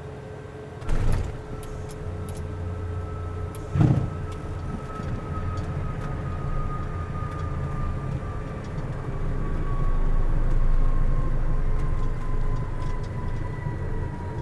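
Small jet touching down: a thump about a second in as the main wheels meet the runway and a harder one a few seconds later as the nose wheel comes down. Then the landing rollout goes on, with steady rumbling tyre and airframe noise that swells later on and an engine whine slowly falling in pitch as the engines sit at idle.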